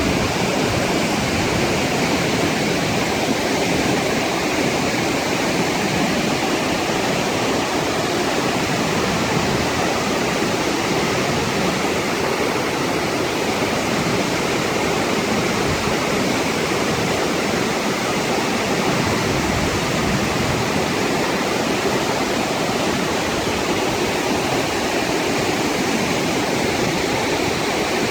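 Flash-flood water rushing steadily down a desert canyon wash and over a waterfall, an even noise that holds steady throughout.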